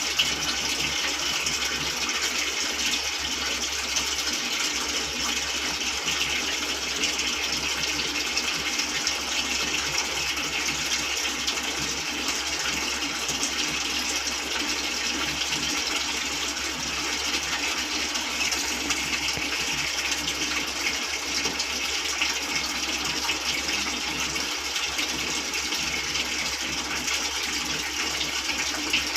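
Water running steadily into a washing machine, a continuous even rush with no pauses.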